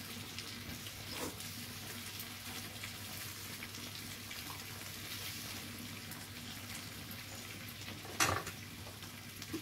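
Meat and vegetables sizzling steadily on a tabletop Korean barbecue grill pan around a hotpot of broth, with a low steady hum underneath. A sharp utensil clack about eight seconds in, and a lighter one about a second in.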